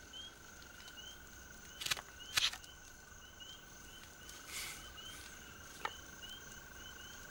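Night insect chorus: crickets chirping about four times a second over a steady high trill. Two sharp clicks about two seconds in as a two-piece spear is twisted apart at its joint, then a brief rustle near the middle.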